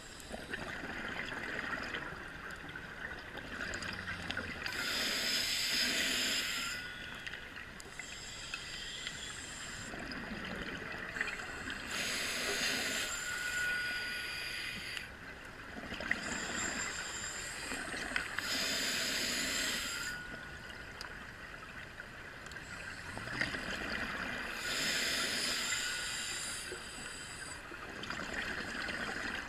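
Scuba diver breathing through a regulator underwater: four hissing inhalations about six or seven seconds apart, alternating with the bubbling of exhaled air.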